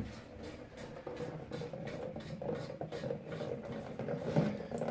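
Water trickling steadily from a partly undone radiator valve into a container as the radiator drains, with a brief louder knock near the end.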